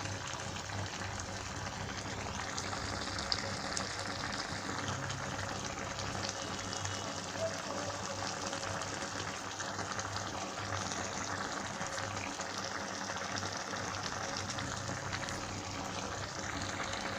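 Chili chicken simmering in a pan with water and sauce, bubbling steadily.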